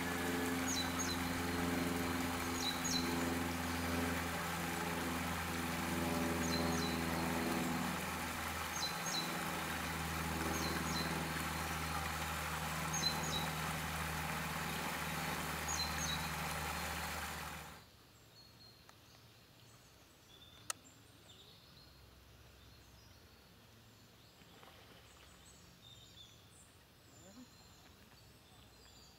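Small stream splashing over a low cascade, a steady rushing with a low hum under it and a bird's short high call repeating about every second and a half. About 18 seconds in it cuts off suddenly, leaving a much quieter stretch with faint bird chirps and one sharp click.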